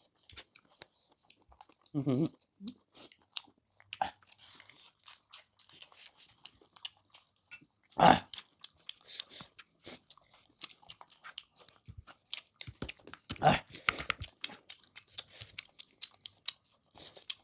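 Close-miked mukbang chewing of chicken: many quick wet clicks and smacks of the mouth, with a few louder short sounds, the loudest about eight seconds in.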